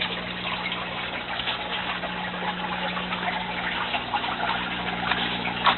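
Water running and splashing in an IBC aquaponics tank system, over a steady low hum, with a brief knock near the end.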